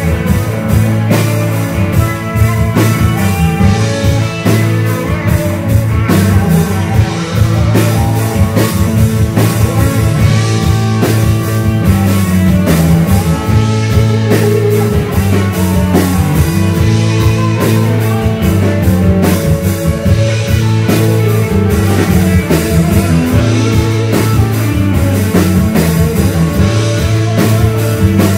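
Live rock band playing an instrumental passage: electric guitars over a drum kit keeping a steady beat.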